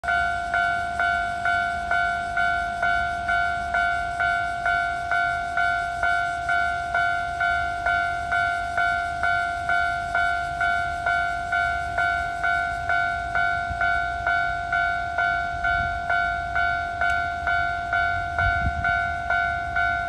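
Japanese level-crossing electronic warning bell ringing a steady two-tone clang about twice a second, the signal that the barriers are down and a train is approaching.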